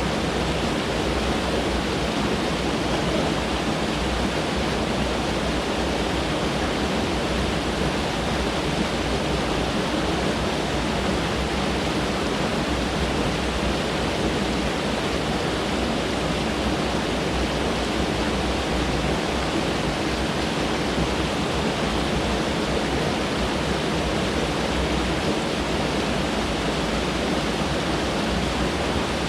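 Mountain stream rushing over rocks: a steady, even water noise with no pauses or changes.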